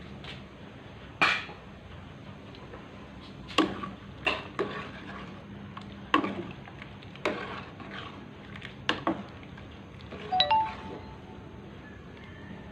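Metal ladle knocking and clinking against the side of an aluminium pot while stirring a liquid dish: about eight sharp knocks, a second or so apart. One knock about two-thirds of the way through leaves a brief metallic ring.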